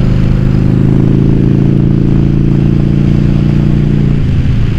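Yamaha Virago XV750's air-cooled V-twin engine running steadily under way on the road. The engine note wavers briefly about four seconds in, then settles again.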